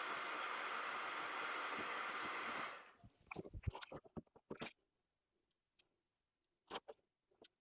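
A steady blowing hiss from a workshop air tool that cuts off suddenly about three seconds in, followed by scattered light clicks and taps of plastic parts and tools being handled.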